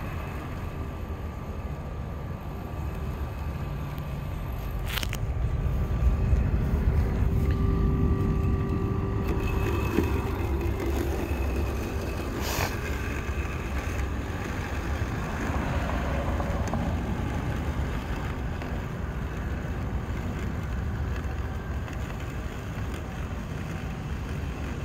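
Robotic lawn mower running as it drives slowly through overgrown grass on its perimeter run, with a faint steady motor whine over a low rumble that grows louder for several seconds in the first half. Two sharp clicks, about five and twelve seconds in.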